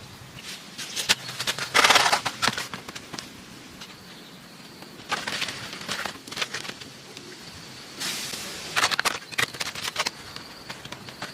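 Three bouts of crackling and rustling, about three seconds apart, over a faint steady high insect trill.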